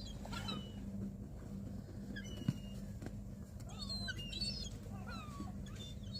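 Several seagulls calling, short high mewing cries, one after another and overlapping, over a steady low hum. A single sharp click about two and a half seconds in.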